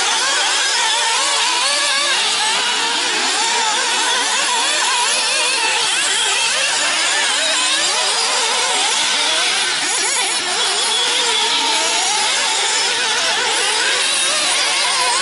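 Several nitro RC buggies' small glow-fuel engines running at high revs together, their overlapping whines constantly rising and falling in pitch as the buggies accelerate and brake around the track.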